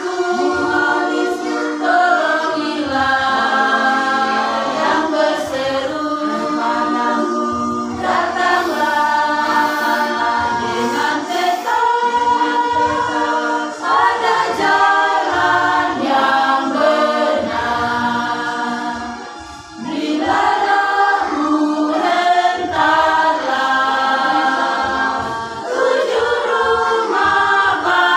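Women's choir singing a hymn a cappella, in long sung phrases with a short break for breath about two-thirds of the way through.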